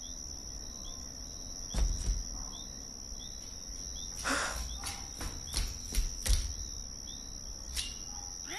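Night ambience of crickets: a steady high trill with small repeated chirps. A few soft thumps come through it, the clearest a little under two seconds in and several between four and six and a half seconds.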